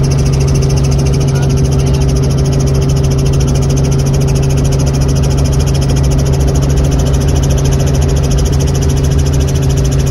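Light helicopter's engine and rotor in flight, heard from inside the cabin: a loud, steady drone with a fast, even beat from the rotor blades.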